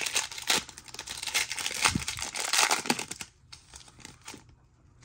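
Plastic wrapper of a trading card pack crinkling as it is torn open and pulled apart, dense crackling for about three seconds, then fainter rustling and ticks as the cards are handled.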